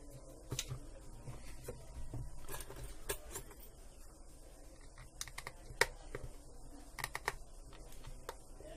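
Scattered light plastic clicks and taps as a Nokia TA-1034 feature phone's body and back cover are handled and set down on a work mat, in small irregular clusters.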